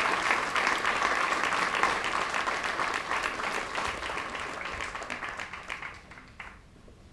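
An audience applauding, the clapping thinning out and dying away about six seconds in.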